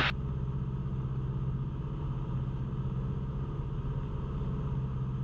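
Cessna 172's piston engine and propeller running steadily in flight, a constant drone heard from inside the cabin.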